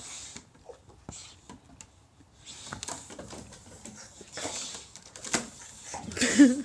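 A sulphur-crested cockatoo and a boxer dog facing off on wooden decking: scattered claw taps and scuffles, breathy hisses in the middle and near the end, and a short growly call near the end, the loudest moment.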